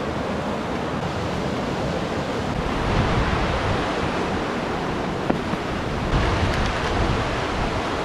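Rain-swollen mountain river rushing over rocks in white-water rapids, a steady, dense rush of water. A single short knock about five seconds in.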